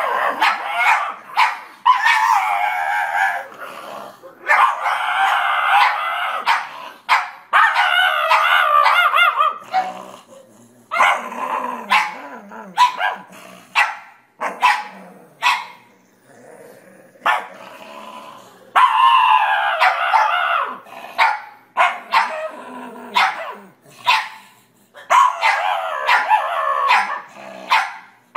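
Black pug giving a string of long, wavering howl-like grumbles, each a couple of seconds long, with short yips and barks in between.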